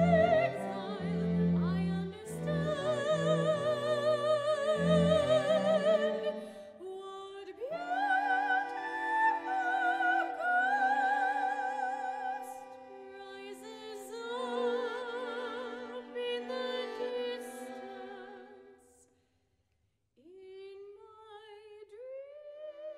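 Classical choral singing in an operatic style, sustained voices with strong vibrato, with low instrumental accompaniment under them for the first six seconds. The music stops about 19 seconds in, and after a second's silence a new piece begins with a voice gliding up in pitch.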